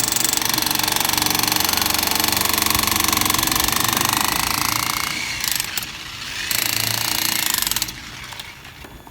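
Jackhammer breaking into a concrete column, running in rapid continuous blows. It eases off about five seconds in, runs again briefly, then stops near eight seconds.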